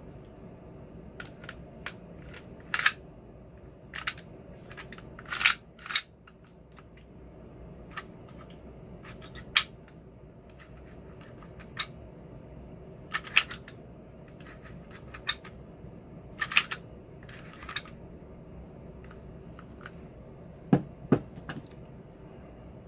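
Irregular sharp plastic and metal clicks and clacks, a few every couple of seconds, as an airsoft Glock 19 gas pistol is handled and its parts are worked; two heavier knocks near the end.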